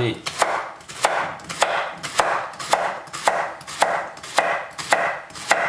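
Chef's knife slicing a leek into rounds on a wooden cutting board: a steady run of about ten cuts, nearly two a second, each a short crunch through the stalk and a knock of the blade on the board.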